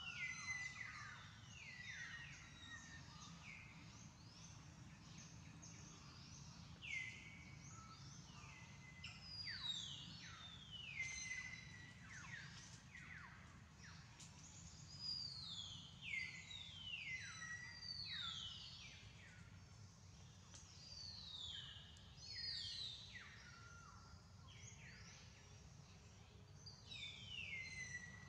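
Birds calling: many overlapping whistled notes, each sliding down in pitch, repeated throughout over a faint steady low background hum.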